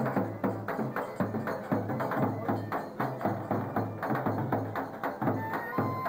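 Davul drum playing a steady dance rhythm of about three strokes a second: deep booms from the heavy beater mixed with sharp, wood-block-like clacks from the thin switch. Near the end a high held melody note comes in.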